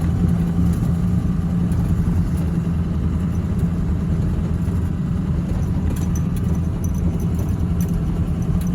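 2016 GMC Sierra pickup driving slowly under load, hauling a tractor over a rough, muddy road: a steady low engine and road hum. A few light clicks or rattles come in over the last few seconds.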